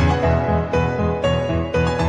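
Background music: a melody of held notes over a steady low beat of about four pulses a second.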